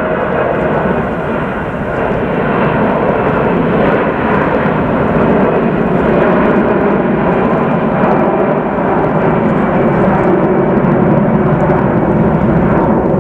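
Airbus A340-300's four CFM56 turbofan engines at takeoff power, a loud steady jet roar from the climbing airliner that slowly grows louder as it comes overhead.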